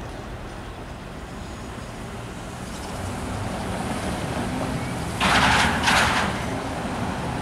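Road traffic running steadily by a railway grade crossing, growing a little louder partway through, with two short loud hisses about half a second apart a little after five seconds in.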